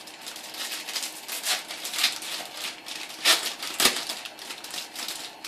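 Irregular clicks, taps and light scrapes of a motherboard being handled and fitted into a computer case. Two sharper knocks come a little past three seconds in and just before four seconds.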